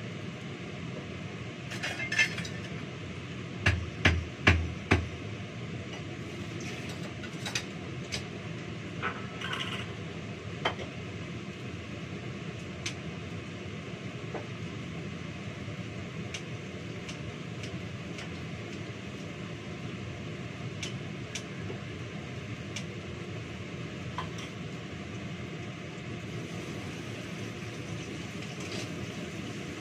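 Pots, dishes and utensils clinking and knocking together as they are handled and washed, with a cluster of four louder knocks a few seconds in, then scattered light clinks over a steady background hum.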